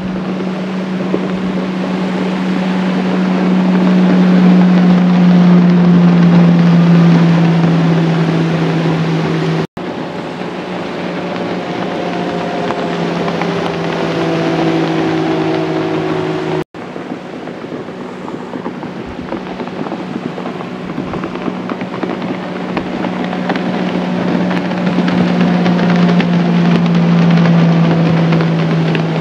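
Bass boats' high-horsepower outboard motors running at full throttle past the camera, a steady engine drone with the rush of hull and spray, swelling louder as a boat goes by. The sound cuts out abruptly twice.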